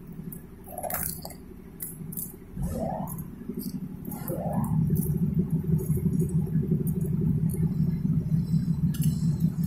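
Coated welding rods clinking and tapping against one another as they are handled, with several light metallic clicks in the first half. A low steady hum comes in about a quarter of the way through and grows louder, becoming the loudest sound.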